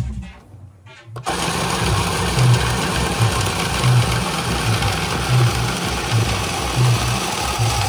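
Automatic card shuffler running: its electric motor whirring as it feeds two decks of playing cards through its rollers, switching on about a second in.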